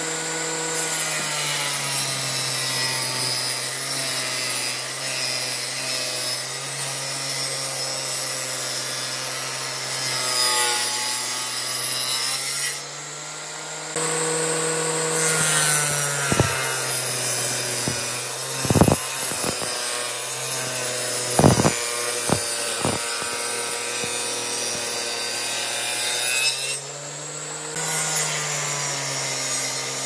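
A power tool working wood: a steady motor hum under a rough rubbing, grinding sound. It drops out briefly twice, and a few sharp knocks come about two-thirds of the way through.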